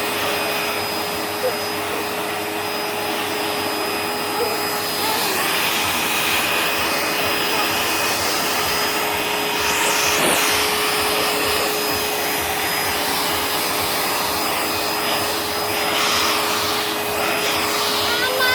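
Vacuum cleaner running steadily, its motor whine holding one pitch, as the nozzle is passed over a cat's fur.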